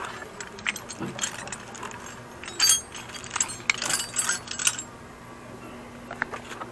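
Hand tools and small metal parts clinking and rattling against each other in a run of sharp, irregular clicks, as the motorcycle's carburetor is being loosened for removal; the clinking thins out near the end.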